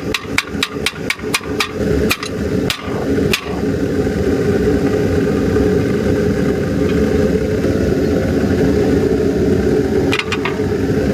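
Rapid, evenly spaced hammer blows, about three or four a second, then a few slower blows. From about two seconds in, a motor-driven machine takes over with a steady hum.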